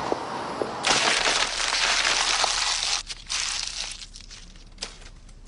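A few light taps, then a sudden loud rush of noise about a second in that breaks into shorter bursts and dies down.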